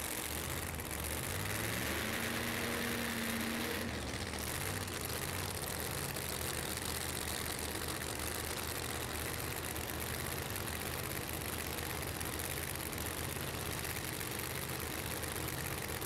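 Drag racing cars' engines idling at low revs in a steady rumble, with a short rise in pitch about two to four seconds in.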